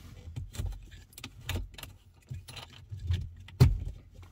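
Plastic phone-mount parts being handled: knocks and clicks as the MagSafe base is worked off the ball joint of the dashboard mount, with one sharp snap about three and a half seconds in as it pops free.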